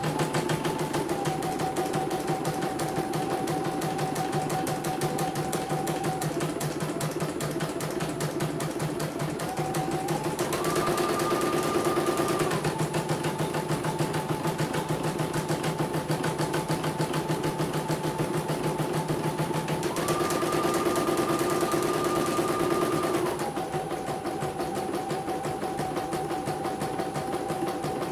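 CNY portable computerized embroidery machine stitching a design: a rapid, even needle clatter over a motor whine. The whine rises in pitch and gets a little louder twice, for about two seconds about ten seconds in and for about three seconds about twenty seconds in.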